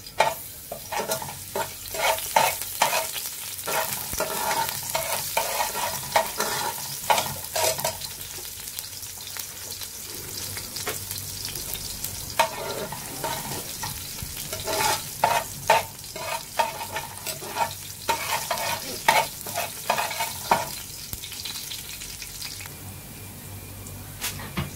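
Minced garlic sizzling in hot ghee oil in a metal pot, with a spoon stirring it and clacking and scraping against the pot in two long runs of quick strikes, the first at the start and the second about halfway through. The sizzle grows fainter near the end.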